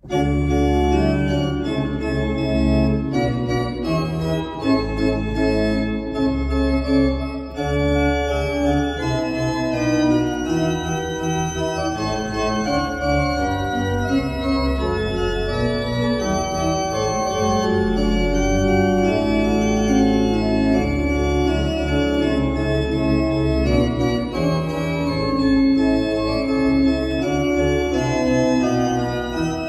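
Rebuilt 1910 Rieger pipe organ, now a two-manual baroque-style instrument, playing an improvisation in chords over deep, long-held bass notes. It begins abruptly at full volume and plays on steadily.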